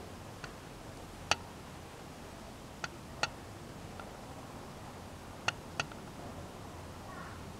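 About half a dozen short, sharp clicks at uneven intervals, two of them in quick pairs, over a steady low background hiss.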